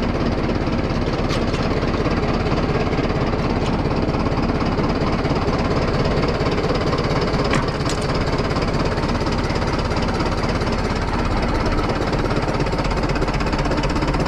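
Case 830 tractor engine running steadily, heard from the driver's seat as the tractor drives off pulling a loaded manure spreader.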